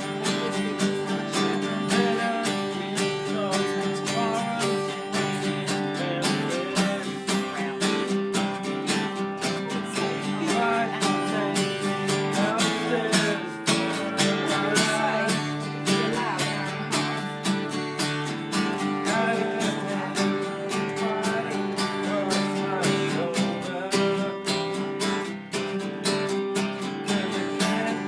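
Country music played on strummed acoustic guitar, a steady strum with a melody line wavering above it.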